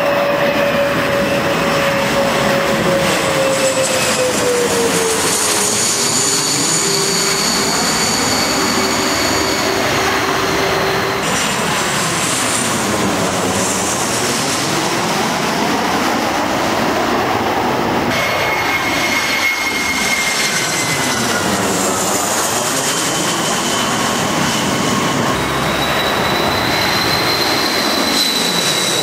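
Jet airliners on landing approach passing low overhead one after another, a continuous loud jet-engine noise. An engine whine slides down in pitch as each plane goes over, once about five seconds in and again around twenty seconds in, and a new high whine rises near the end as the next jet comes in.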